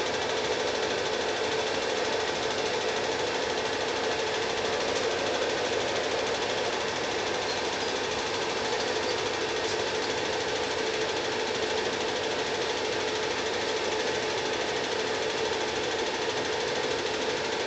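Steady, even mechanical clatter of a running cine film projector, unchanging throughout.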